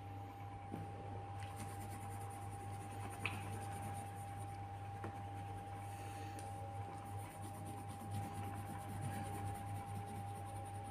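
Faint coloured pencil and hand handling on paper over a steady electrical hum with a constant thin tone; one small click about three seconds in.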